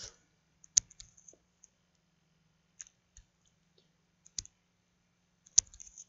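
Scattered single clicks of a computer mouse, a handful spread unevenly, the sharpest just under a second in and near the end, over a faint steady low hum.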